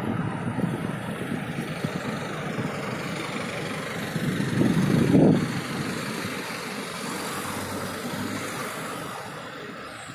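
City street traffic: cars and other vehicles running on the roads below, a steady rumble that swells louder about four to five seconds in and eases off toward the end.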